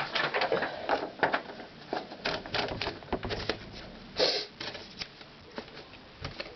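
Paper being loaded into a 1903 Wagner Underwood Model 4 typewriter: irregular mechanical clicks and rattles from the carriage and platen, with a short rustling swish of paper about four seconds in.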